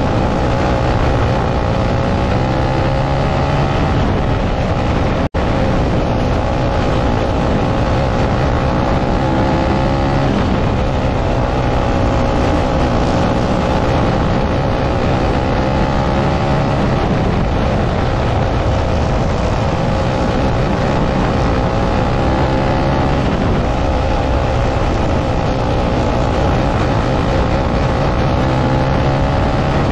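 Winged dirt kart's single-cylinder engine at racing speed, heard from onboard: a loud steady drone whose pitch climbs on each straight and falls back into the turns, about every six to seven seconds.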